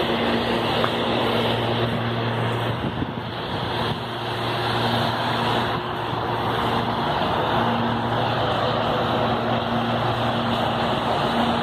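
CPTM Série 7500 electric commuter train running slowly past the platform: a steady rolling rumble with a low electric hum that fades in and out several times.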